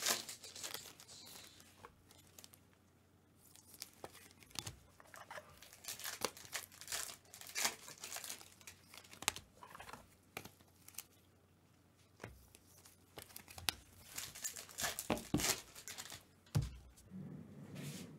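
Foil trading-card pack wrapper crinkling and tearing open, with the cards being shuffled and handled, in short irregular spells with quieter gaps.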